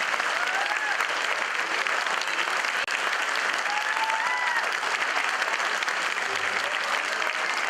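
Audience applauding steadily for a stage act, with a couple of brief high calls rising and falling over the clapping, about half a second in and again about four seconds in.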